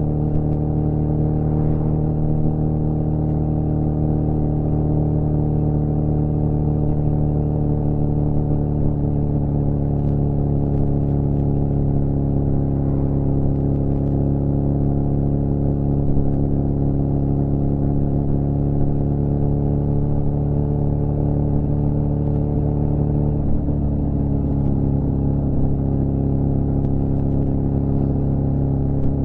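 2006 Suzuki GSF 650 Bandit's inline-four engine running at steady revs through a cut-down Beowulf exhaust with no baffle. The pitch drops slightly about four-fifths of the way through, then holds steady again.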